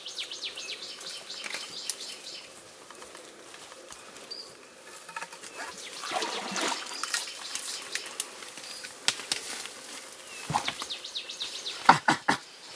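Close, irregular rustling and scuffing as a young mountain gorilla handles the wet rocks and plants at the water's edge. There is a thicker patch of rustling about halfway through, and a quick run of sharp knocks near the end as the camera is moved.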